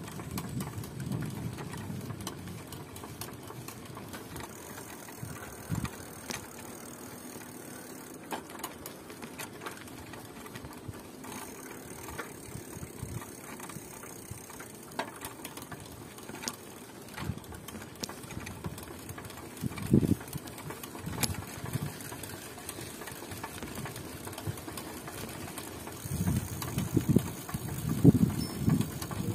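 Noise of a bike being ridden: an irregular low rumble with scattered knocks and rattles, louder in the last few seconds.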